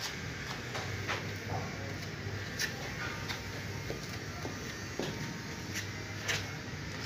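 Metal putty knife scraping as it spreads joint compound over a drywall joint: a string of short scrapes and taps over a steady low hum.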